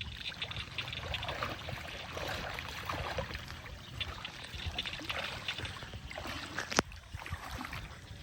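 Shallow water sloshing and trickling with many small irregular splashes, as of hands or a net moving through it, with one sharp click about seven seconds in.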